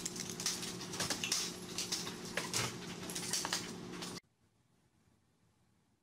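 A dog knocking over a wire baby gate: the gate rattles and clatters down onto a tiled floor, with repeated knocks and scuffs as the dog scrambles onto it, over a steady low hum. The sound cuts off abruptly about four seconds in.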